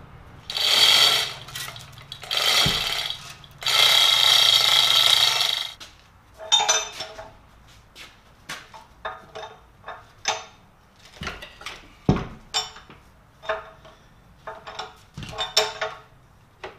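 Heavy iron shop fixture being handled on a steel hand truck: three loud scraping rasps in the first six seconds, then a string of irregular light metallic clinks and knocks with a short ring, from the steel shackles, slings and hand-truck frame rattling against the iron.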